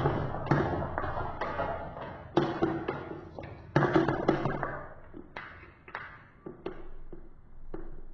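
Marbles rolling and clattering down a marble run: a continuous rattle full of clicks, with louder clacks about two and a half and four seconds in, thinning out to a few scattered clicks near the end.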